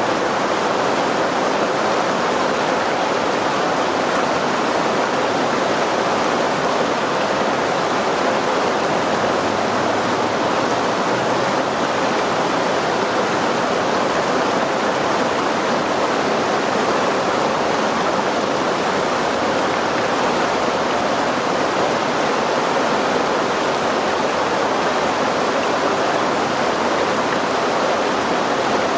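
Stream water rushing and splashing over rocks in a steady, continuous wash with no letup.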